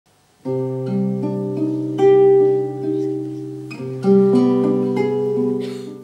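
Classical guitar playing slow, ringing plucked notes over a low sustained bass note. The notes come in about half a second in, the bass is struck again partway through, and the playing fades near the end.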